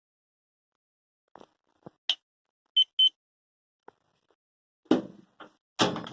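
Electrolux ME28S microwave oven: a few faint clicks, then two short high beeps from the control panel, then loud clunks near the end from the oven door.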